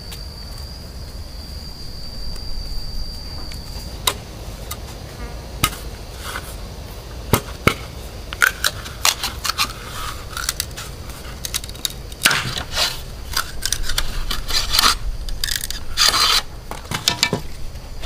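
Irregular scrapes, clicks and knocks of objects being handled, sparse at first and busier in the second half. A steady high-pitched tone stops about four seconds in.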